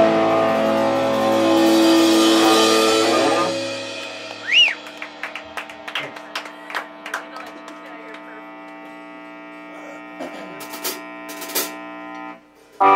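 Live rock band with electric guitars and a drum kit playing loudly, then falling back to a held, ringing guitar chord with scattered clicks and taps. The ringing cuts off sharply near the end and is followed by one loud hit.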